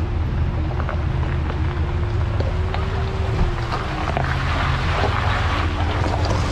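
2014 Ford Raptor's 6.2-litre V8 running at a low, steady crawl as the truck creeps down the bank. Rushing water from the front tyre entering the shallow creek builds over the second half.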